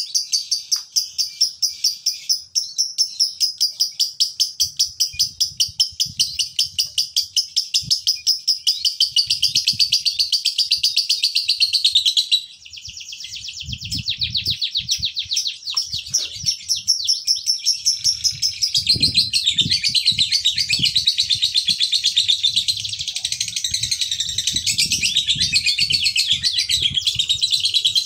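Male Fischer's lovebird giving a long ngekek: a continuous rapid high-pitched chattering trill of fast repeated notes, with a brief break about twelve seconds in before it picks up again.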